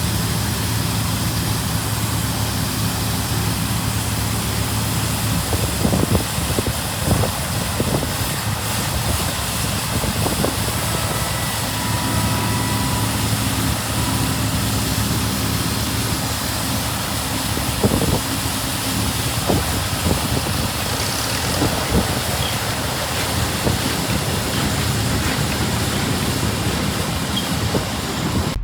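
Vintage farm tractor engine running steadily under a harvest load, with the rattle of working harvest machinery and a few sharp knocks.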